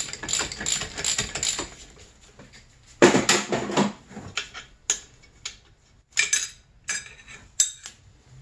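Metal-on-metal clinks and scraping of a hand tool and parts against a snowmobile engine's magneto flywheel: a run of quick light clicks, a louder scrape about three seconds in, then several single clinks.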